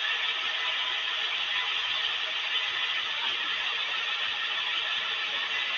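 The engine of an 80-ton crane runs steadily while it holds a suspended crawler pile-driving machine. A constant mechanical noise with faint steady tones runs through it and does not change.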